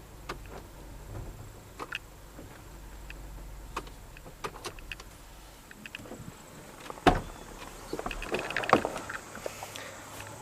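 An old, long-parked tractor being moved by hand with its transmission out of gear, giving scattered clicks, creaks and knocks, with one sharp knock about seven seconds in. No engine is running.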